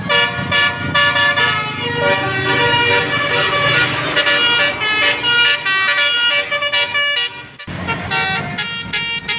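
A telolet multi-tone musical horn playing a fast tune of short notes that jump between pitches, with a brief break about three-quarters of the way through before the tooting resumes.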